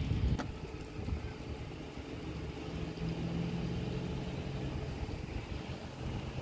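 A tow truck's engine idling steadily, a low hum. A single light click comes about half a second in.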